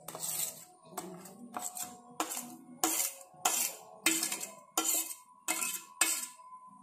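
Steel spoon scraping and knocking ground green masala paste off a steel plate into a steel bowl: a run of metal clinks about every half second, each with a short ringing tone from the steel.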